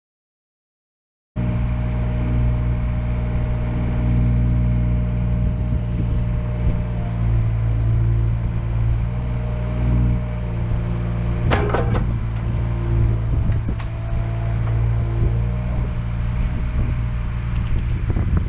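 Komatsu PC26MR-3 mini-excavator's diesel engine running steadily, cutting in abruptly about a second in, with a brief clatter partway through.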